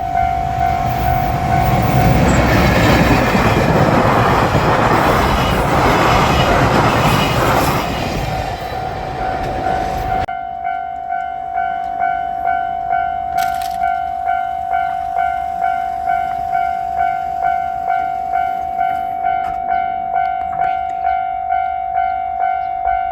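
A JR Freight train hauled by an EF210 electric locomotive rumbles and clatters over a level crossing for about the first ten seconds, then its noise stops abruptly. A Japanese level-crossing alarm bell rings throughout in a quick, even clang, alone after the train has gone.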